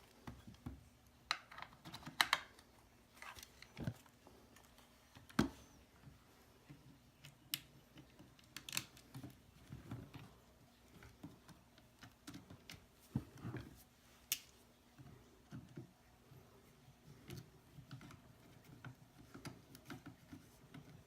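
Irregular light clicks, taps and small knocks of gun parts being handled and fitted while a GSG-5 .22 rimfire rifle is worked on, with a few sharper clicks scattered through.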